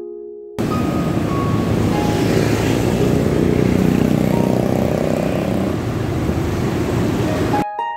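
Riding a motor scooter in city traffic: engine running and wind rushing over the microphone, a steady dense noise that starts suddenly about half a second in and cuts off just before the end.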